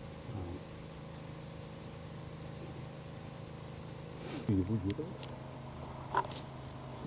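Dense insect chorus: a steady, shrill, high-pitched buzz with a fast pulsing texture, dropping somewhat in level about four and a half seconds in.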